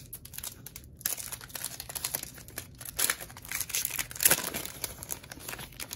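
Foil wrapper of a Panini Prizm trading-card pack being torn open and crinkled as the stack of cards is pulled out, in irregular crackles with the loudest crinkle about four seconds in.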